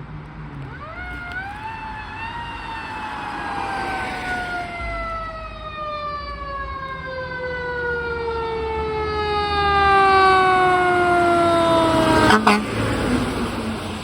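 Fire truck siren winding up to a peak, then falling slowly and steadily in pitch for about ten seconds before cutting off, over the low rumble of the truck. A short loud blast comes just as the siren stops.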